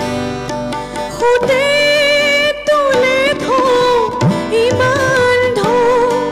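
A woman sings a melodic song live into a microphone, coming in about a second in with long held notes and small bends. Acoustic guitar and tabla accompany her throughout.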